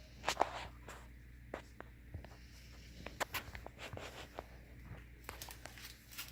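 Squeegee scraping and rubbing over a vinyl decal's transfer paper in short, irregular strokes with scattered clicks, pressing the decal down onto the bumper.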